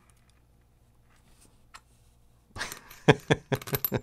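Small fishing-reel parts clicking and tapping as they are handled and fitted by hand during reassembly. A near-quiet stretch, then a rapid run of sharp clicks starting about two and a half seconds in.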